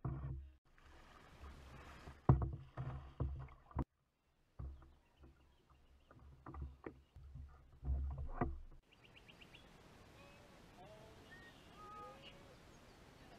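Kayak paddle knocking against a plastic hull, with water sloshing and a low wind rumble on the mic. This runs for about nine seconds, with a sharp loud knock a couple of seconds in. After that it goes quieter to a steady hiss with a few faint short chirps.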